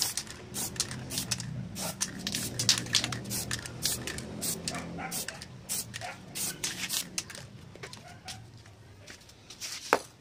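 Aerosol spray-paint can hissing in many short, quick bursts as black paint goes onto a plastic motorcycle fairing for the second coat. The bursts thin out towards the end, and a single sharp knock comes just before the end as the can is set down on concrete.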